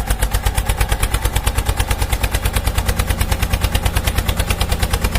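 Heavy vehicle engine running with a fast, even chugging beat of about nine knocks a second over a steady low drone.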